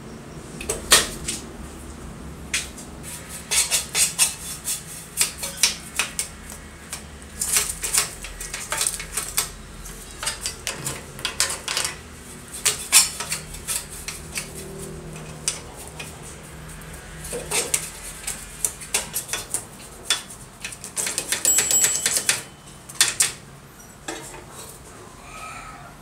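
Metal clicks and rattles from an old Royal manual typewriter's carriage and mechanism being worked by hand, coming in irregular bursts, with a quick run of clicks near the end.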